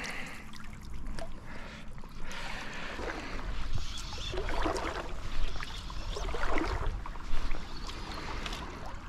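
River water flowing, with irregular splashes and swishes about once a second.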